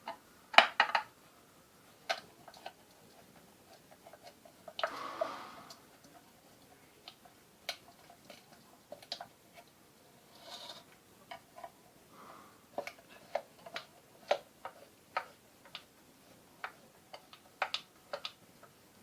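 Irregular metal clicks and taps of hand work on ceiling fan motor parts during a bearing replacement, with a short scraping rustle about five seconds in.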